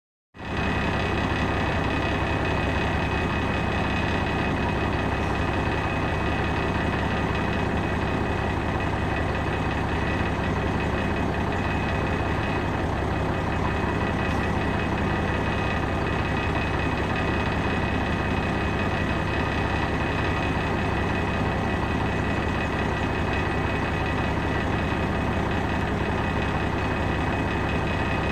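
Steady mechanical running noise, like an idling engine, with a constant low hum and thin steady high tones, starting abruptly half a second in.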